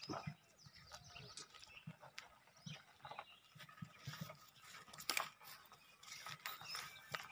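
Faint steps of a cow and a person walking through dry grass and weeds, crunching and rustling, with scattered sharp clicks.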